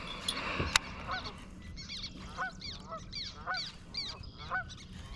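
Geese honking over and over, about two short calls a second, starting a second or so in. A single sharp knock comes just before the calls begin.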